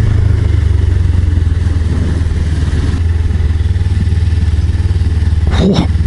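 Suzuki GSR250's parallel-twin engine running at a steady cruise, heard from the bike itself as it rides along.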